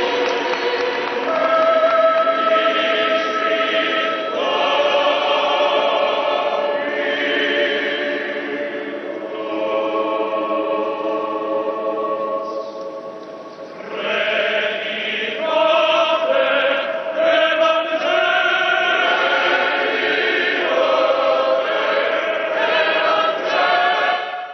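Choir singing a slow chant in long held notes, with a brief lull just past the middle.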